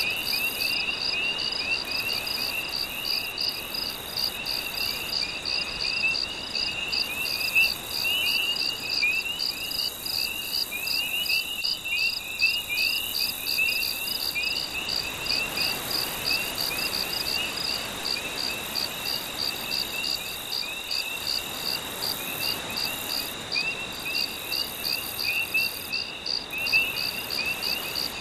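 A chorus of night insects, mostly crickets: several layers of high chirping, one a steady even pulse a few times a second, one a continuous trill, and quicker irregular chirps just below, over a soft steady wash.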